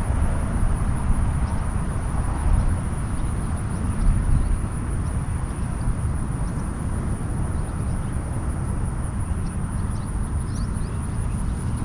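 Wind rumbling on the microphone, with a steady high-pitched insect drone over it.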